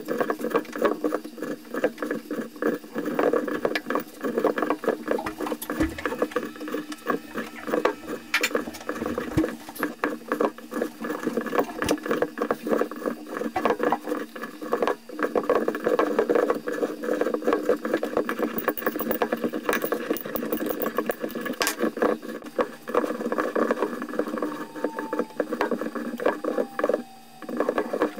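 Dense crackling and rustling of regenerator filling material as it is pressed by hand into the metal regenerator housing of an ST05G Stirling engine, with many small scrapes and taps against the metal.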